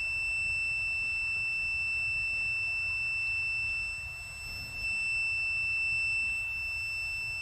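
Digital multimeter's continuity tester sounding one steady high-pitched beep, its leads across a fuel injector's terminals: the injector's coil circuit is complete, unlike the open cylinder 4 injector that gave no beep.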